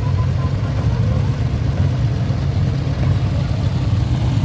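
Old motorcycle engine running steadily, a continuous low engine note with no revving or change.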